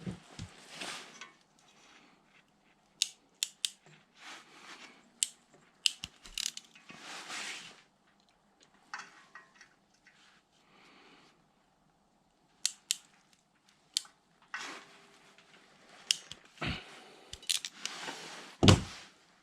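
Hand work on wiring and small parts: irregular sharp clicks and short rustling, scraping handling sounds, with a few quiet gaps. A heavy knock near the end is the loudest sound.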